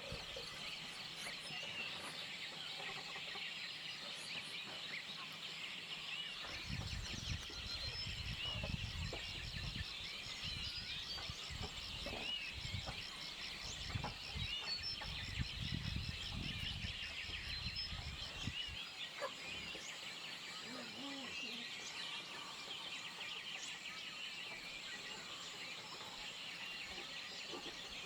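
Farmyard poultry and small birds calling, with many short chirps throughout. A low rumble runs through the middle stretch, and a fast high trill sounds over the same stretch.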